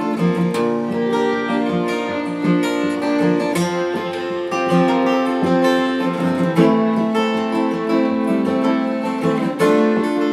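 Two acoustic guitars strumming chords while a fiddle plays a bowed melody with long held notes; an instrumental break with no singing.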